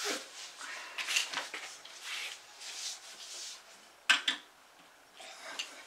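Plastic LEGO DUPLO pieces being handled: soft rustling and light knocks, then two sharp clicks about four seconds in as pieces are set onto the build.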